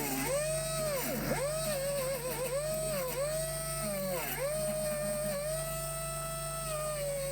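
Small high-speed electric rotary tool running with a steady whine. Its pitch sags and recovers several times in the first few seconds as it is pressed against the workpiece and eased off, then it runs steadily.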